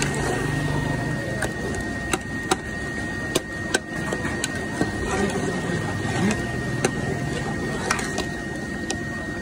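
Metal spoon stirring thick lentil curry in a steel pot, with irregular clinks and scrapes of the spoon against the pot.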